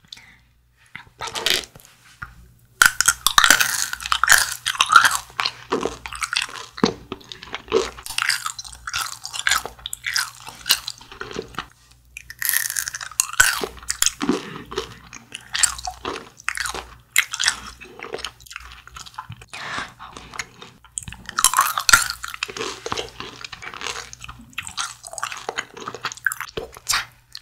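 Close-miked crunching and chewing of small chewy candy sticks (mermaid candy), in several spells of loud crunchy bites with softer chewing between.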